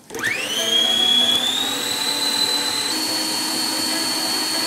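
Electric stand mixer beating eggs: the motor spins up with a rising whine, runs steadily, and steps slightly higher in pitch about three seconds in.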